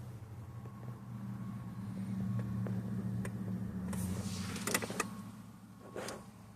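A small electric motor in the car hums steadily for about four and a half seconds, slowly getting louder, then stops. A few sharp clicks and a knock follow.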